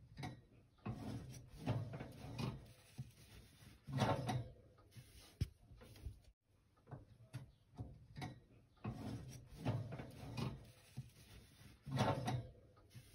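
Metal cake pan scraping and sliding on a wire oven rack, with the rack rattling and knocking as the pan is pushed in. It comes in two similar bouts, each with a louder scrape near its end.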